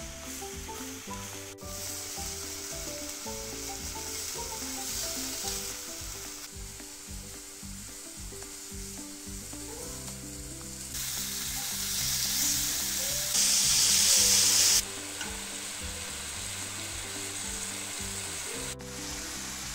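Food sizzling as it fries in a hot pan. The sizzle grows clearly louder about eleven seconds in for a few seconds, then drops back, with a brief break twice.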